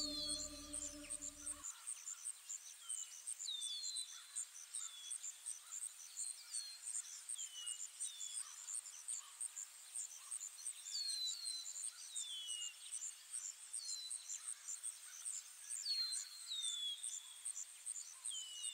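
Crickets chirping in a fast, even pulse, with short high falling chirps repeating every second or so. A sustained music chord cuts off about two seconds in.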